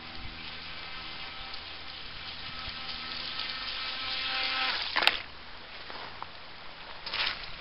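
The stock brushed electric motor and jet drive of a Pro Boat Mini-V RC boat whine at full throttle on a 2S battery, growing louder as the boat comes in. About five seconds in there is one sharp knock as the hull runs up onto the pebble shore, then the whine is gone. A short rush of noise comes near the end.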